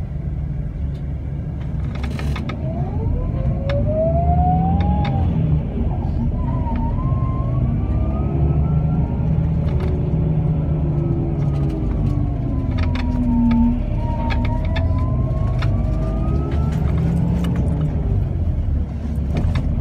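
A bus heard from inside while driving: a steady low engine rumble with a drivetrain whine that rises in pitch as it pulls away, then falls and rises again with its speed. Scattered rattles and clicks sound through it.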